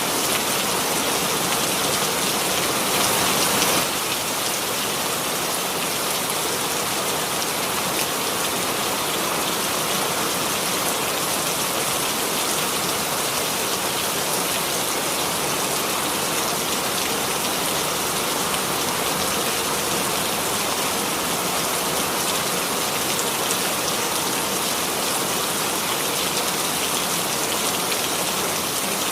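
Steady rain falling, an even hiss of many drops, a little louder for the first few seconds and then constant.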